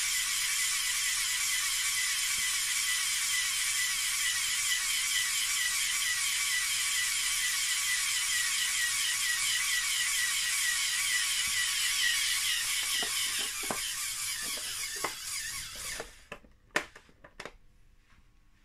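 LEGO Technic pneumatic compressor, four EV3 Large Motors driving eight large pneumatic pumps, running with a steady, fast-pulsing high whir. It stops about 16 seconds in, followed by a few sharp clicks.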